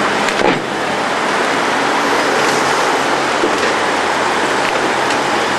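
A Dodge Challenger's engine running low as the car creeps past at walking pace, over a steady hiss of street and crowd noise. A short knock comes about half a second in.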